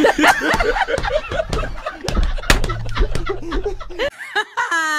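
Men laughing hard in bursts of cackling, with a few sharp slaps. It ends in a held, high-pitched whoop that cuts off suddenly.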